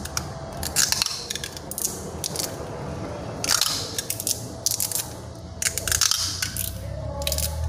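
Wide plastic tape being pulled off its roll and stretched tight around a steering wheel rim, crackling in short bursts about four times. It is being wound to squeeze the loose rubber grip onto the steel rim and take up its play.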